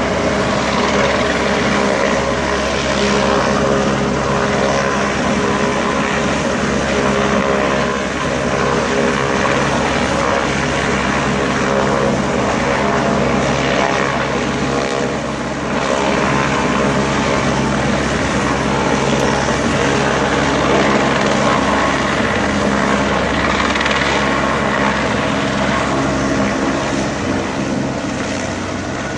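LAPD Air Support Division helicopter flying overhead, its rotor and engine making a steady, even drone.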